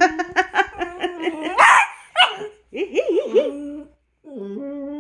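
Small dog growling and whining at its bowl of strawberries, with a sharp bark about a second and a half in and another short one just after. It is guarding its food.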